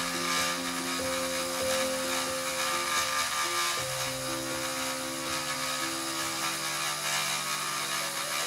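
CNC spindle with its cutter milling the outline of a printed circuit board: a steady high-pitched cutting hiss. Slow piano music plays beneath it.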